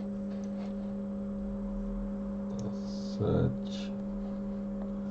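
Steady low electrical hum, with a few faint short clicks and one brief spoken word about three seconds in.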